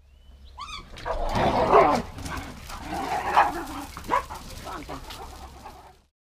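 Several small dogs barking and whining, with a few sharp barks among the noise; the sound fades out near the end.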